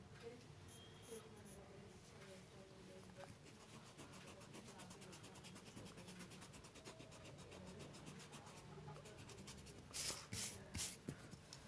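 Pencil scratching faintly on drawing paper in fast, even strokes, as in shading. About ten seconds in come three louder rubs across the paper.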